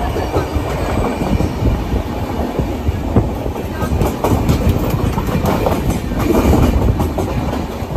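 Indian Railways passenger train in motion, heard from the door of its own coach: a steady low rumble of wheels on rail with an irregular clatter of wheel strikes over it.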